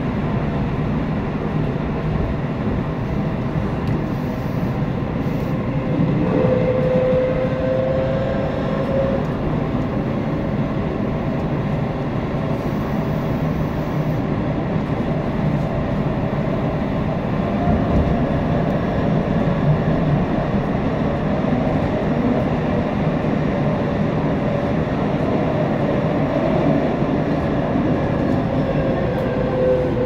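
Running noise inside a Tobu subway-through train, set 9152, with GTO-VVVF traction equipment: steady wheel-on-rail and tunnel rumble. Thin inverter/motor tones drift slowly in pitch, one falling near the end.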